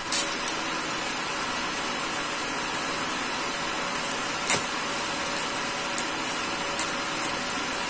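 A plastic courier pouch being slit open with a utility knife: a few sharp clicks and rustles over a steady background hiss. The loudest click comes about four and a half seconds in.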